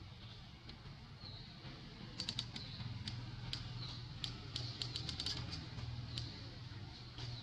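An irregular run of light, sharp clicks about two seconds in, lasting some four seconds, over a low steady hum, with a few faint high chirps.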